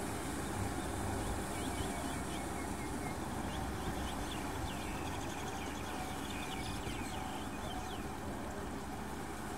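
Distant Kubota M6040SU tractor's diesel engine running steadily under load as it cultivates flooded paddy mud. Birds chirp over it in quick high calls, falling away near the end.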